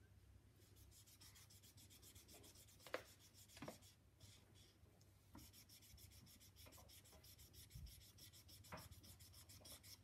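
Faint rubbing of a felt-tip marker colouring on paper in quick back-and-forth strokes, with a couple of light taps about three seconds in.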